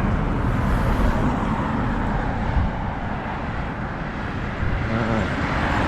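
Road traffic on a nearby bypass: a steady wash of tyre and engine noise that eases a little midway and builds again near the end as more vehicles pass.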